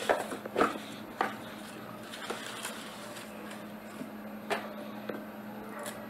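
Clear plastic wrapping crinkling in a few short, sharp crackles as a small sensor bar is pulled out of it and handled, loudest about half a second in and again about four and a half seconds in.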